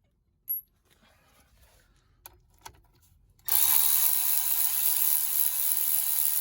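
Electric ratchet running continuously for about three and a half seconds from halfway through, spinning out a wheel hub assembly mounting bolt that has already been broken loose. A few light clicks of tool handling come before it.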